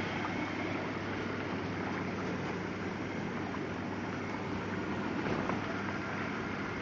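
Whirlpool bathtub's jet pump motor running steadily with a low hum while water churns through the jets.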